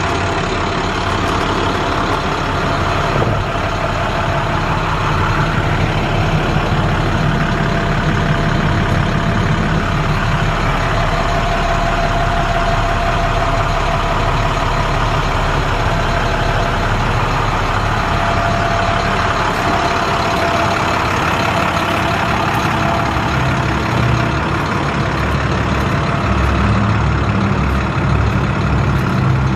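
International 4300 truck's MaxxForce DT diesel engine idling steadily.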